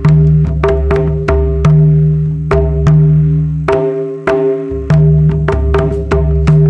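Mandar, the two-headed barrel drum of Jharkhand, played in a steady rhythm: crisp hand strokes on the small head over a ringing, pitched bass tone from the large head, the bass dropping out briefly just before the middle.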